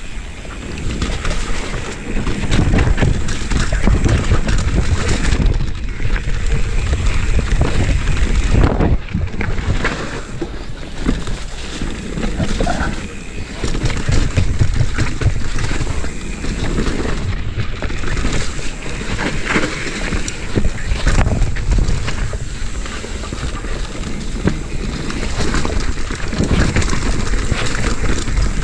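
Wind buffeting the camera microphone, with the tyres rolling over a dirt trail and the mountain bike knocking and rattling over bumps on a fast descent.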